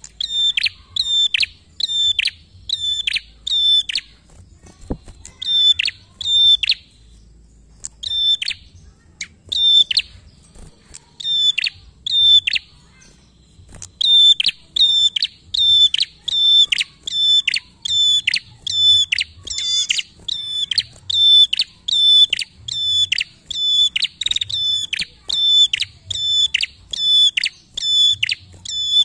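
Red-headed prenjak (tailorbird) calling hard and fast: a long string of sharp, high notes, each rising quickly and then held, about two a second. The notes come in bursts broken by short pauses.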